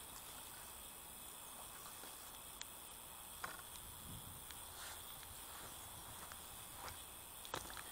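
Faint handling noises: a few light clicks and soft rustles from fishing tackle and a towel being handled, over a steady faint outdoor hiss.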